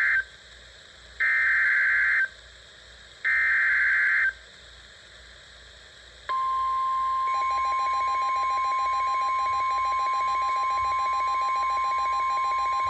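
Emergency Alert System SAME header data bursts: the end of one burst, then two more, each about a second long with a second's gap between them. About six seconds in, a long steady attention tone begins, and a second, pulsing tone joins it a second later. Together they announce that a new warning is about to be read.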